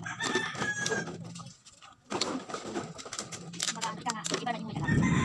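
Empty plastic bottles clicking and clattering as they are picked through by hand, with a rooster crowing near the end.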